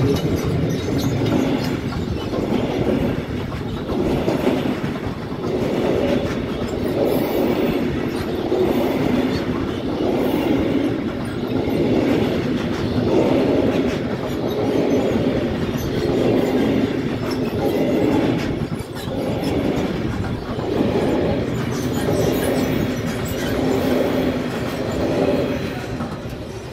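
Freight train wagons rolling past close by, the wheels beating in a steady rhythm about once a second. The sound dies away near the end as the last wagon clears.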